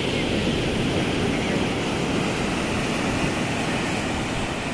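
Sea surf breaking on a rocky shore: a steady rushing noise, with no single crash standing out.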